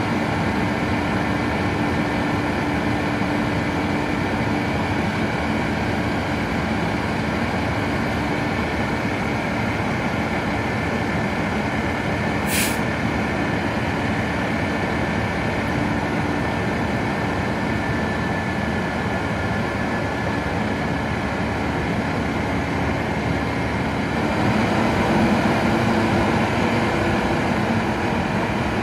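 Leach rear-loader garbage truck's diesel engine running steadily at the curb, with one short sharp hiss about twelve seconds in. Near the end the engine grows louder and its pitch shifts up.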